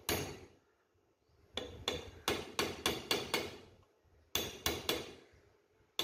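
A hammer striking a steel punch set against a C-clamp's screw and swivel pad, with sharp, ringing metallic blows. There is one blow, then a quick run of about seven at roughly three to four a second, then a pause and four more.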